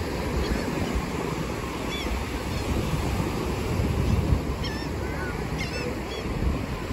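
Ocean surf washing steadily onto a sandy beach, with wind buffeting the microphone. A few short, high-pitched calls cut through about two seconds in and again in the second half.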